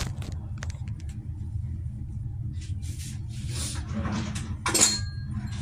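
Kitchenware being handled on a counter: scattered knocks and clatter, then a sharp clink of ceramic about three-quarters of the way through that rings briefly. A steady low hum runs underneath.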